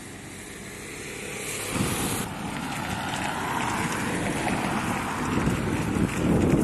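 Wind buffeting the microphone: a rough, rumbling rush that gets much louder about two seconds in.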